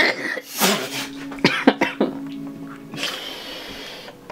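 A person coughing, then a few short knocks and a hiss of about a second near the end.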